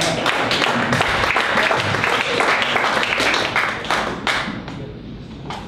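Audience applauding: a dense patter of many hands clapping that dies away about four to five seconds in.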